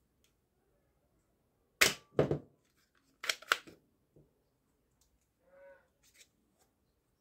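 Toy foam-dart air pistol's plastic mechanism clacking sharply as it is handled: two pairs of loud clacks, about two seconds in and again about three and a half seconds in, then a few faint clicks.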